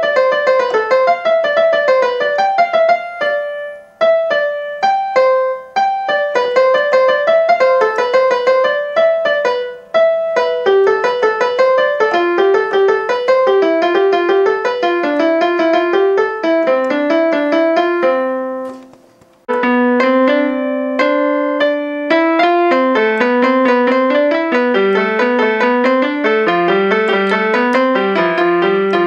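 Portable electronic keyboard played with a piano voice: a simple melody of single notes, with short breaks and a longer pause about two-thirds of the way through, after which the tune carries on in lower notes.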